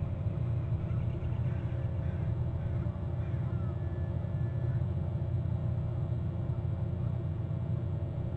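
Steady low rumble, with a few faint high chirps over it.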